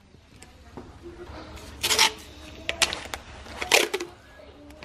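Paper masking tape ripped off the roll twice, in short rasping pulls about two seconds in and again just before four seconds, with light clicks and rustling as the strips are pressed down onto the metal.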